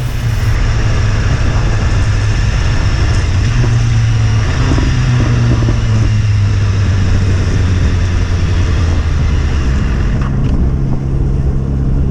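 Motorcycle engine running steadily under way, its drone holding an even pitch over a constant rushing wind and road noise.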